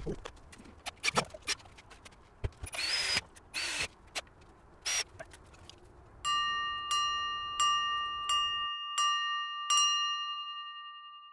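Scattered clicks, knocks and two short bursts of rustling, then a bright ringing chime struck six times, about one and a half strikes a second, its last ring fading away slowly.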